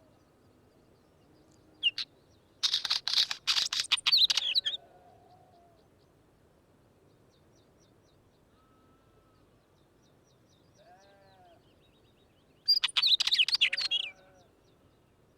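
Wheatear singing: two short bursts of rapid, scratchy song full of clicks and quick high notes, the first about two seconds long and the second about a second and a half, with a brief call just before the first. Fainter low curved notes sound in the gaps.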